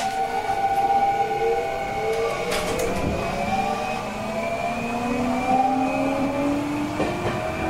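Tokyo Metro Series 06 train's Toshiba IGBT-VVVF inverter and traction motors whining as it accelerates, several tones rising slowly in pitch together. There is a brief knock from the running gear about three seconds in.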